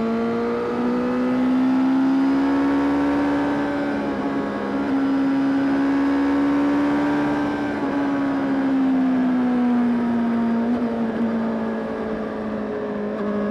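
Honda CBR600RR's inline-four engine pulling away. Its pitch rises over the first two seconds, holds steady for several seconds, then eases back down and settles.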